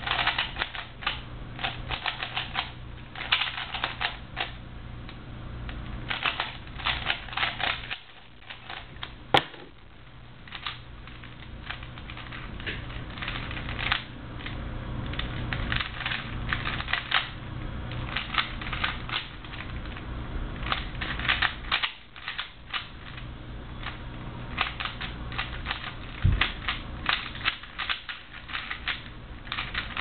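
3x3 Rubik's cube being turned rapidly by hand in a speedsolve: fast runs of plastic clicks and clacks as the layers snap round, with two brief pauses along the way.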